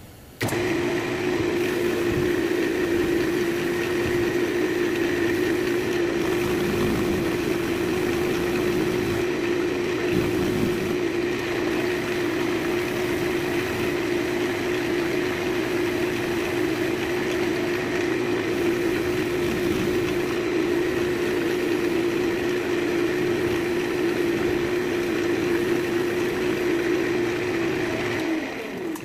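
Wood lathe running at a steady speed with an even motor hum while friction polish is rubbed onto the spinning cherry vase with a paper towel. The sound cuts in just after the start and cuts out near the end.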